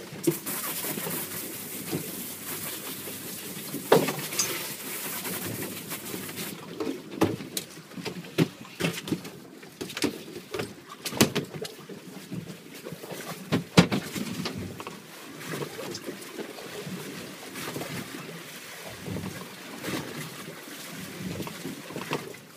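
Choppy water knocking and slapping against a small boat's hull, irregular thumps of varying strength, the loudest about four and fourteen seconds in, under a steady hiss that fades out about six seconds in.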